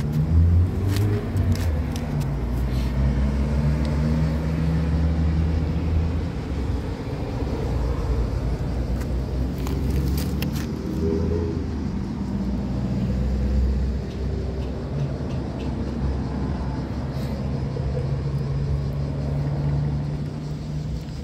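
Low, steady engine rumble of a motor vehicle running close by, its pitch drifting a little, with scattered light clicks of a cat chewing wet food chunks.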